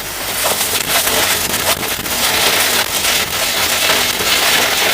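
Cordless brushless impact wrench hammering continuously under load, its rapid impact blows running together into a loud rattling clatter for about five seconds.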